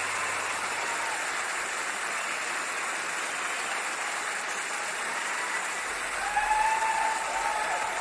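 Audience applause, steady throughout.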